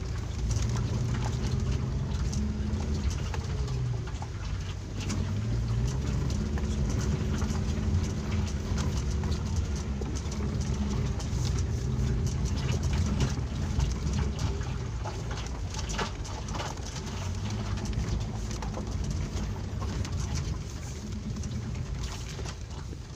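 A Daihatsu Terios engine droning as the car drives along a rocky dirt track, heard from inside the cabin. The engine note shifts up and down, and short knocks and rattles come from the tyres and body over the stones.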